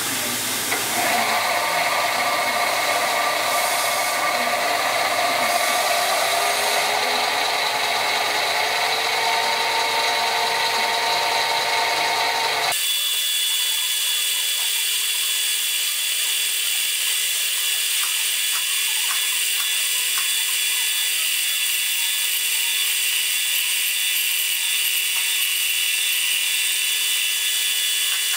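Warco Super Mini Lathe with a brushless motor running, spinning metal stock in its three-jaw chuck during a turning cut: a steady mechanical whine that starts about a second in, with one tone rising slightly in pitch a few seconds later. About halfway through, the sound changes abruptly and loses its low end.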